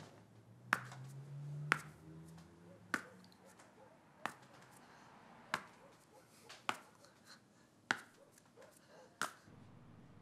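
Fingers snapping at a slow, fairly even pace, about eight sharp snaps roughly a second and a quarter apart.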